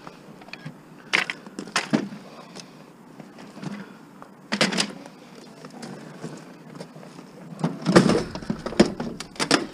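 Irregular knocks and clatters of discarded appliances and furniture being handled and shifted. The loudest and heaviest clatter comes about eight seconds in.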